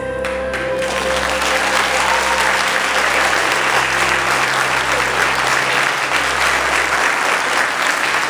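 A church congregation applauding, the clapping swelling to a steady, loud clatter as the last held note of recorded music fades out in the first second or so.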